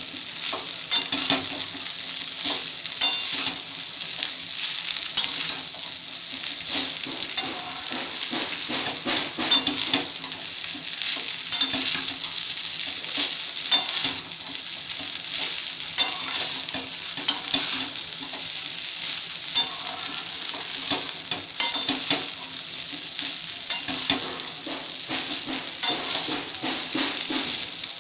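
Cooked basmati rice frying in a steel kadai with a steady sizzle, while a metal spatula scrapes and clacks against the pan as the rice is stirred, with a sharp clack about every two seconds.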